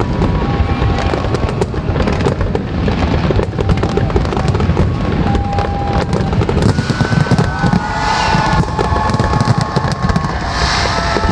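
Fireworks finale: dense, continuous bangs and rapid crackling over a steady low rumble of booms.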